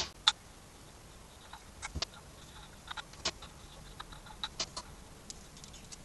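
Scattered light metallic clicks and taps, about a dozen at irregular spacing, some with a brief ring: a steel hex key and small bolts being handled at the hub of an e-bike hub motor. The loudest come right at the start.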